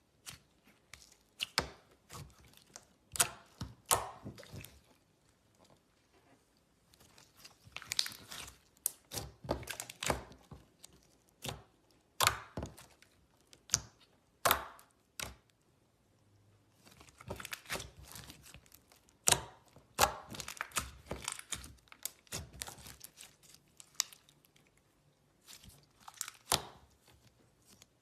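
Glitter slime being handled by hand: irregular clicks, pops and crackles that come in clusters, with short pauses between them.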